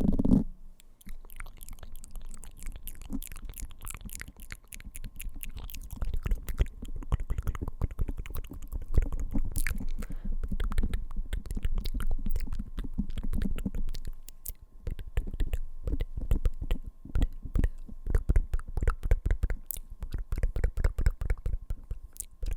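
Fingertips tapping rapidly on a microphone, "typing" on it: a dense run of quick clicks, each with a dull thump, with a brief lull about two-thirds of the way through.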